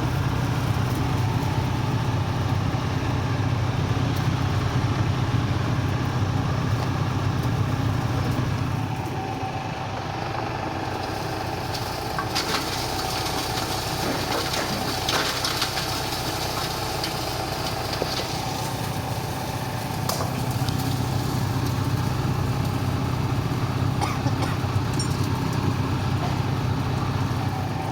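Detergent powder cage mill running: a steady machine drone with a low hum and a constant mid-pitched tone, dotted with scattered clicks and rattles. It eases a little about nine seconds in and comes back up around twenty seconds.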